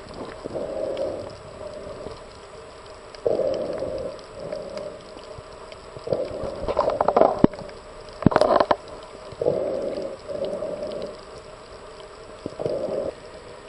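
Muffled underwater water noise picked up by a camera held below the surface: gurgling, rumbling surges that come and go every couple of seconds, with a few sharp clicks near the middle.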